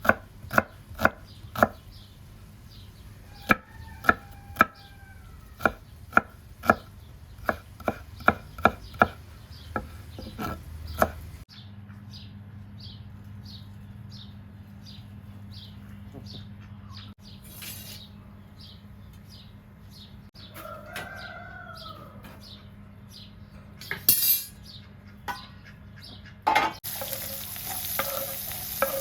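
A knife chopping on a cutting board, with many quick chops over the first ten seconds or so, and a rooster crowing twice. A few knocks follow, then near the end food hits a hot pan and starts to sizzle.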